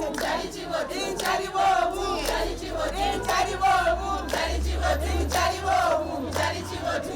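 A crowd singing and chanting together, many voices at once.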